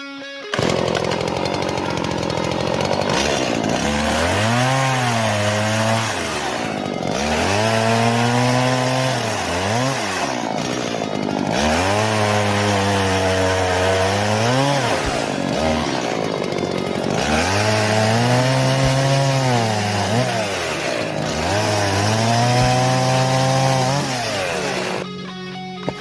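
Two-stroke Stihl chainsaw running and cutting wood, revving up and holding under load several times in a row, its pitch rising and falling with each cut.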